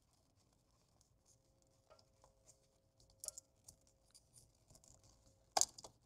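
Faint clicks and light rustling of plastic wiring connectors and wires being handled and pushed into a hinged plastic weatherproof enclosure, with a sharper click about three seconds in and a pair of louder clicks near the end.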